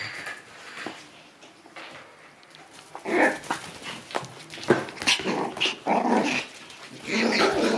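Shiba Inu puppies, one to two months old, growling and yapping in play, in short rough bursts that start about three seconds in and return twice.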